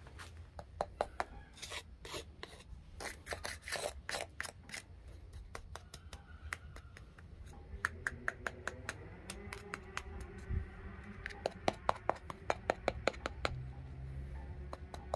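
A knife tapping and scraping the crisp skin of a whole spit-roasted pig, giving runs of sharp crackly clicks that show the skin is crisp. There are clusters of clicks in the first few seconds and again from about eight seconds in, with a lull between.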